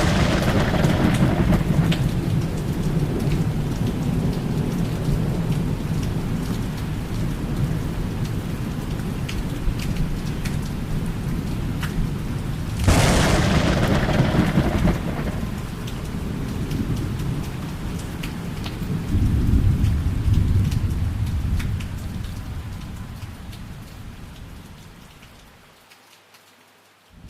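Thunder rolling over steady rain: the rumble of a crack is already sounding, a second sharp thunderclap breaks about halfway through and rumbles on, and a third low rumble swells a few seconds later before everything fades out near the end.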